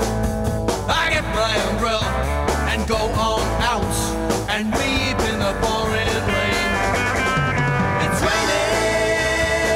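A live two-piece rock band playing a 1960s psych-rock song: an electric guitar through an amplifier and a Ludwig drum kit, with a man singing into the microphone.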